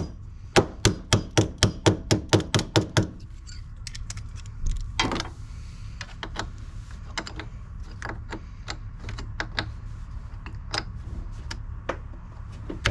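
A quick run of about a dozen sharp metallic taps, roughly five a second, on a battery cable terminal as the negative cable is fitted to the post. This is followed by one heavier knock and then scattered lighter clicks and taps of tool on metal.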